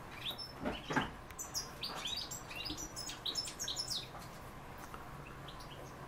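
Caged parrotlets chirping: a quick, busy run of short, high chirps over the first four seconds, with a couple of harsher notes about a second in, then only a few faint chirps.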